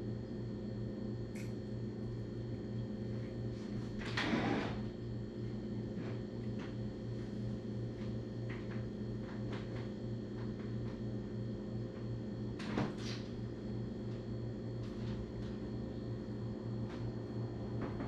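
Steady low hum of the room, with a short noisy rustle or scrape about four seconds in, a second one about thirteen seconds in, and a few faint clicks.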